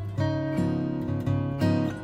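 Background music: acoustic guitar picking a run of notes over a steady low bass note.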